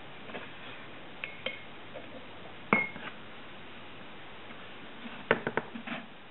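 Light knocks and clinks of small objects being handled, with one short ringing clink about three seconds in and a quick cluster of knocks near the end.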